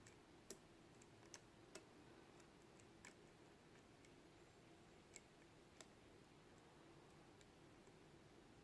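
Faint, scattered clicks of a lock pick working the pin stacks in a Mul-T-Lock Jr. pin-in-pin padlock core, about six sharp clicks over the first six seconds.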